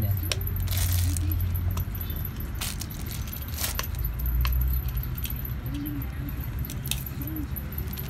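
Pea-pod squeeze fidget keychain being handled: its metal key ring and clasp clink and jingle in scattered clicks, loudest about a second in, over a low hum.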